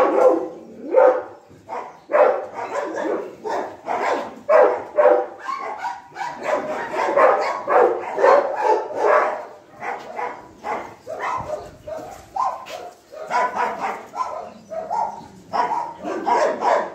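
Several dogs barking, with short barks coming a few times a second and often overlapping.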